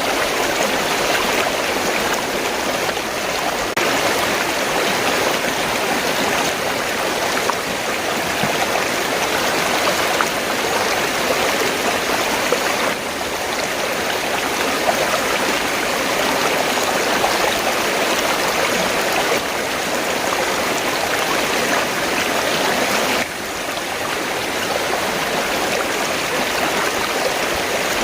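River water flowing in a steady, even rush, with a small sudden drop in level a couple of times.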